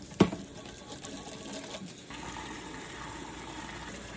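A sharp knock, then water running steadily into a chicken waterer as it fills.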